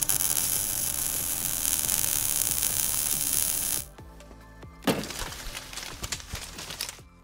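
Sound effects for an animated logo sting over music: a loud, steady hiss for the first four seconds, then a sudden hit about five seconds in that decays away over about two seconds.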